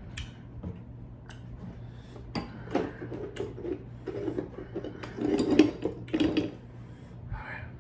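Close-miked sounds of a person eating: chewing and mouth noises mixed with sharp clicks and clinks of tableware, busiest about five to six and a half seconds in.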